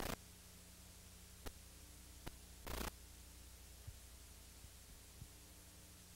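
Faint steady hum and hiss of an old videotape recording, broken by a few sharp clicks and a short burst of static near the middle.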